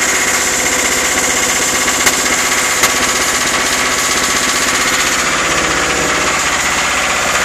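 Lister diesel generator engine running steadily just after starting, loud, with a fast, even beat of its firing strokes. Two faint clicks come about two and three seconds in.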